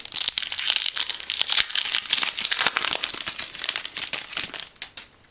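Foil wrapper of a Yu-Gi-Oh booster pack crinkling and crackling as it is torn open and handled. The crackle dies down near the end.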